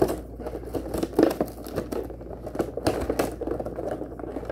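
Cardboard toy box with a clear plastic window being handled and pried at: irregular crinkling of the packaging with scattered small knocks and clicks.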